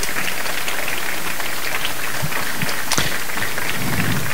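Audience applauding: dense, steady clapping from a crowd, with one sharper clap about three seconds in.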